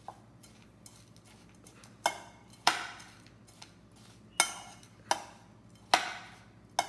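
Metal spoon stirring a thick spice-and-onion mixture in a white bowl, striking the bowl's rim and sides with sharp clinks. After a faint first tap, six loud clinks come roughly every half to one and a half seconds from about two seconds in.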